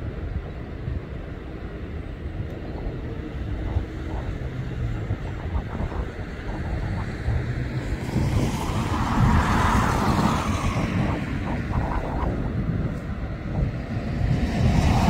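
Steady low engine rumble, with a vehicle passing close by: its noise swells from about eight seconds in, peaks and fades by about eleven seconds. Another starts to build near the end.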